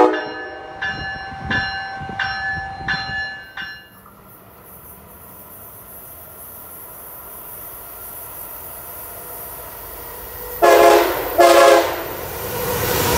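A train horn blast, then a bell ringing five times at an even pace. After a quiet stretch of rising hiss as an Amtrak Acela Express trainset approaches, its horn sounds two short blasts about ten seconds in. The rush of the high-speed train passing builds near the end.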